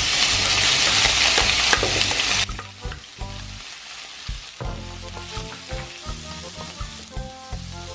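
Thin slices of raw beef hitting hot oil and garlic in a wide nonstick pan, sizzling loudly. They are then pushed around with a wooden spatula. The sizzle drops off sharply about two and a half seconds in and carries on more quietly.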